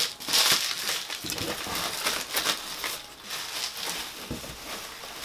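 Plastic bubble wrap and bubble bags crinkling and rustling as they are handled and pressed into the bottom of a cardboard box, loudest about half a second in.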